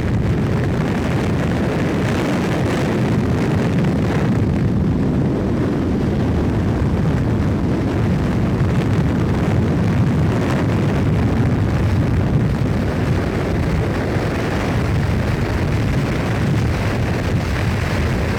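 Steady rushing wind and road noise inside a moving car, with wind buffeting the microphone.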